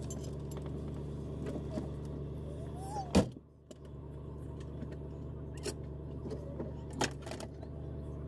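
Vehicle engine idling steadily, heard from inside the cab, with scattered light clicks and one sharp knock about three seconds in.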